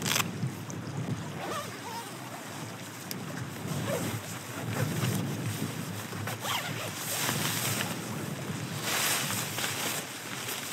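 Wind blowing over the microphone on an exposed fell top, a steady rushing with stronger gusts. It is mixed with rustling and handling noises of camping gear, with a sharp knock right at the start and a burst of hiss about nine seconds in.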